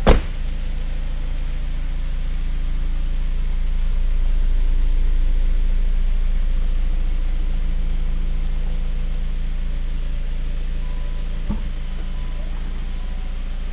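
A car door slams shut, then the Jeep Cherokee's engine idles steadily. Near the end there is a small click and a faint repeated beeping chime.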